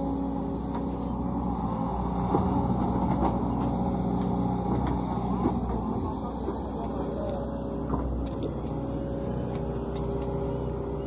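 Sumitomo SH130LF excavator's diesel engine running steadily under digging load, louder for a few seconds in the middle, with a few scattered knocks.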